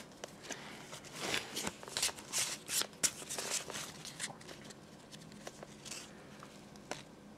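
Pokémon trading cards and booster-pack foil being handled: a run of light rustles and clicks, busiest in the first four seconds and thinning out after.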